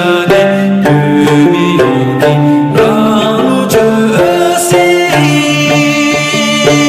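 A man singing while strumming a dranyen, the long-necked Tibetan lute. Its plucked strings keep a steady rhythm under his voice.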